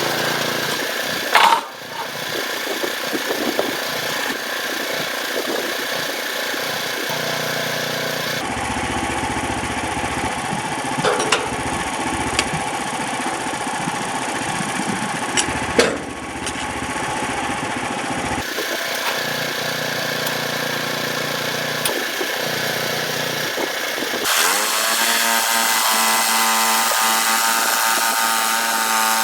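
Portable band sawmill's small gas engine running while the band blade saws through red oak, with a few sharp knocks. Near the end the engine speeds up with a rising whine and settles into a steady, higher running note.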